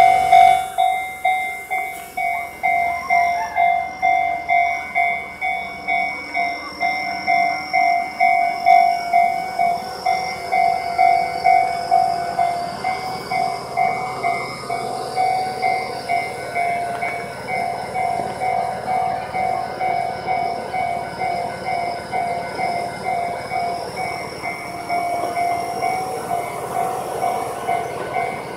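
Japanese railway level-crossing warning bell ringing steadily, an even ding about once every three-quarters of a second. Under it, the running noise of an approaching electric train grows louder in the second half.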